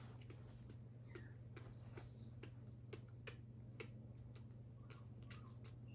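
Near silence: a steady low hum with faint, irregular soft clicks, a few a second.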